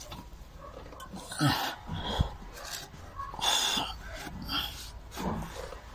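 Irregular breathy puffs and gasps from someone breathing hard while working by hand, with a single sharp knock about two seconds in.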